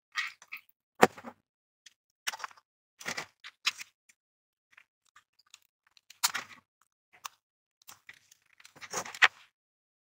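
Handling noise from hand wiring: scattered clicks and taps as wires are worked into a plastic screw terminal strip, the sharpest tap about a second in and a short cluster near the end.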